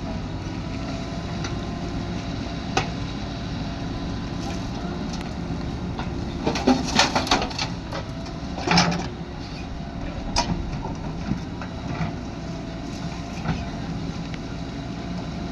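Backhoe loader's diesel engine running steadily, with a quick run of clattering knocks about seven seconds in, a heavier knock near nine seconds, and single knocks scattered after.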